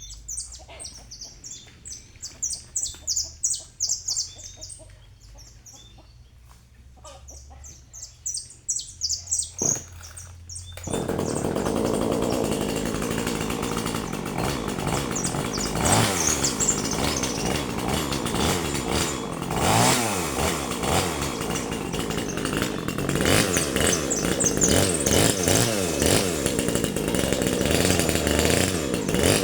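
Birds chirping in short high notes, then about eleven seconds in a chainsaw starts running loudly, its engine revving down and up again several times.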